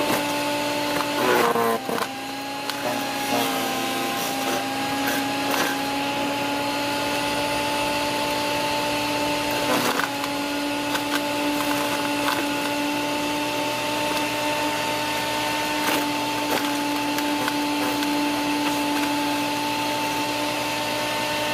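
Electric garden branch shredder running with a steady motor whine as leafy branches are fed in. The pitch sags briefly as the blades bite into a load about a second in, with cracks and snaps of wood being chopped, thickest early on and again at about ten and sixteen seconds.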